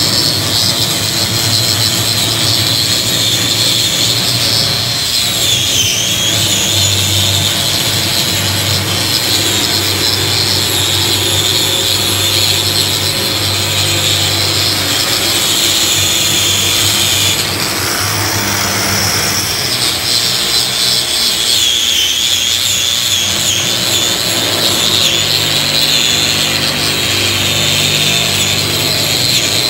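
Electric angle grinder with a wire cup brush scouring a blasted steel deck to strip rust, running steadily with a high whine that sags in pitch a few times as it is pressed into the steel.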